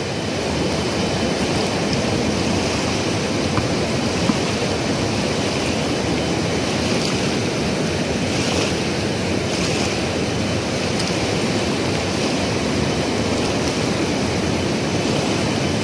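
A swollen river rushing, a steady unbroken roar of water.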